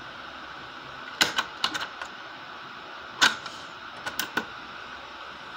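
Mechanical clicks of the piano-key cassette buttons on a Jensen CD-550 portable CD/cassette boombox being pressed: a quick run of sharp clicks about a second in, a single one in the middle, and a short cluster of clicks a second later.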